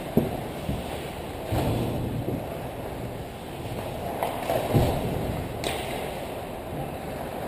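Ice hockey play in a large, near-empty arena: a steady scrape of skates on ice, broken by several sharp knocks and cracks of sticks, puck and boards, the loudest near the start and just before the five-second mark.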